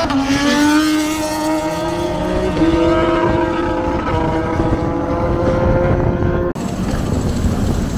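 Racing motorcycle engine at high revs on the circuit, its pitch climbing slowly as the bike accelerates. About six and a half seconds in it breaks off abruptly and gives way to a steadier noisy background.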